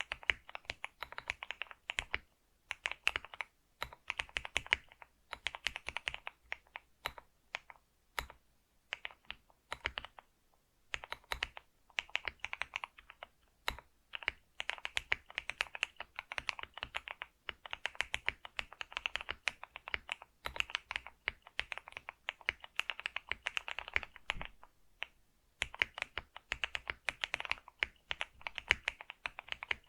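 Typing on a computer keyboard: fast, continuous key clicks in runs, with brief pauses between bursts.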